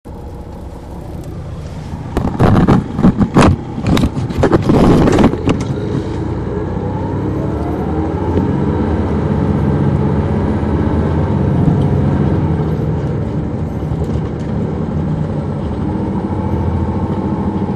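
Detroit Diesel Series 60 inline-six diesel of an MCI D4000 coach, heard from on board. Several loud bursts of rushing noise come about two to five seconds in, then the engine speeds up with rising pitch and runs on steadily.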